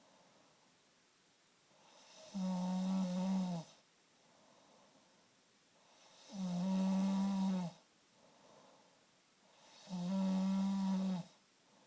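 A man snoring in his sleep: three loud snores about four seconds apart, each a steady low-pitched drone lasting over a second.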